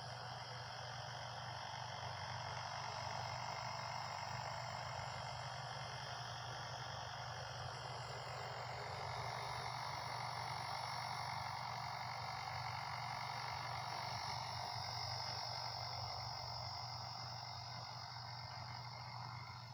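WLtoys V950 RC helicopter in flight: the electric motor whines and the rotor hums steadily, the whine drifting slightly in pitch and growing a little louder about halfway through.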